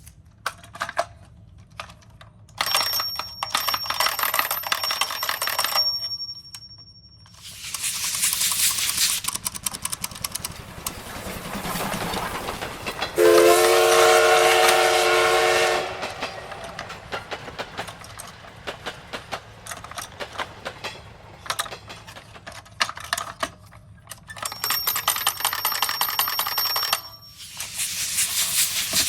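Electronic sound effects from battery-powered toy ambulances: several bursts of hissing, a steady horn-like tone held for about three seconds in the middle, and scattered clicks and rattles from the plastic toys.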